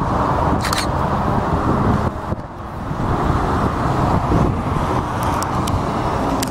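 Steady rumble of road and airport traffic: cars on the road beside the airfield mixed with a widebody jet taxiing past. The sound dips briefly about two seconds in, and a few short high-pitched bursts come near the start and near the end.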